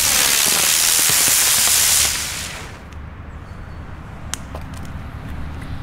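Smoke-trail firework (Funke Rauchspurgeschwader) hissing loudly as its charge burns and it climbs, the rushing hiss dropping slightly in pitch and cutting off about two and a half seconds in. A few sharp clicks follow.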